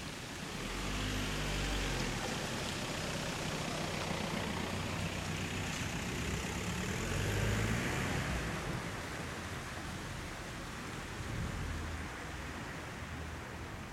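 A motor vehicle engine running, rising in level from about a second in, strongest around seven to eight seconds, then fading, over a steady hiss of background street noise.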